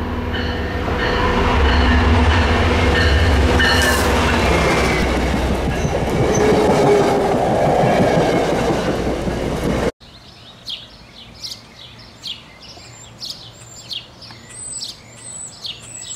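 A train running on the rails, a loud rumble with steady squealing tones from the wheels, cuts off abruptly about ten seconds in. After it, birds chirp repeatedly over a quiet background.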